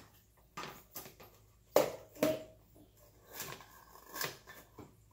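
Scattered knocks and clicks of flour being sifted: a metal hand-crank flour sifter and a scoop tapping against the mixing bowl and flour jar. The loudest knock comes a little under two seconds in.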